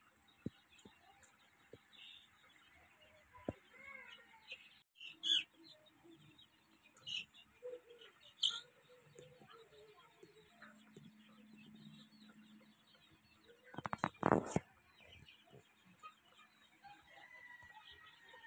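Flock of young Sonali chicks peeping and chirping, with short calls scattered throughout. About three-quarters of the way through comes a brief loud clatter of knocks and flapping.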